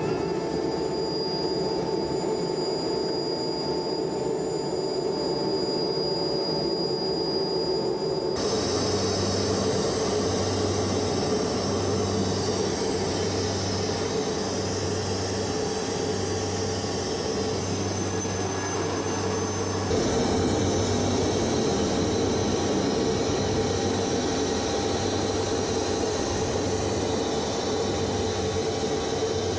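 Helicopter engine and rotor noise heard from inside the cockpit: a steady drone with a low throb pulsing about once a second in the middle part. The sound changes abruptly about 8 and 20 seconds in.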